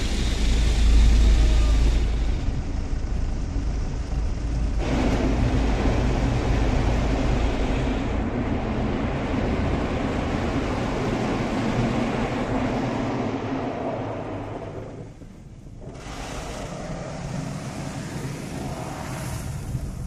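Automatic car wash heard from inside the car: spinning red cloth brushes scrub and slap across the windows and body amid water spray. It is a steady rushing noise with a heavier rumble in the first few seconds and a brief dip about fifteen seconds in.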